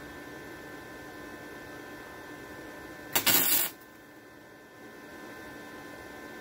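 A short MIG welding tack: the arc crackles in one burst of about half a second, about three seconds in, over a steady electrical hum.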